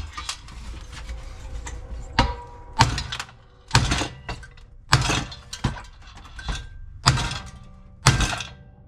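Hard metal-on-metal blows, about seven or eight roughly a second apart, each with a short ring, as a hammer pounds on the bent crankshaft of a seized Briggs & Stratton 550EX mower engine to drive it out of the block.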